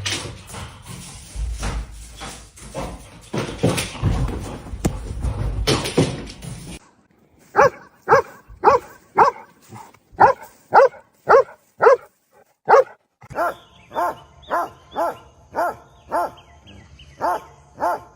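A stretch of noise with scattered knocks, then a dog barking in a steady run of about two barks a second. After a break the barking goes on, a little quieter and at the same pace.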